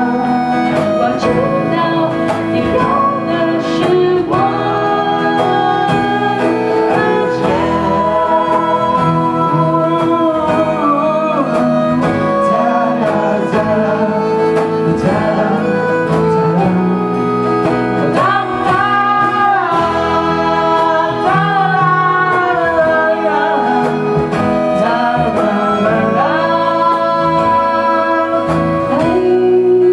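A song performed live: singing over a strummed and plucked guitar accompaniment.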